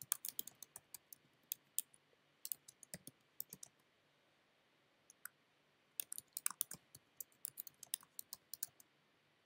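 Typing on a computer keyboard: quick runs of light key clicks, a short pause near the middle, then another run of typing.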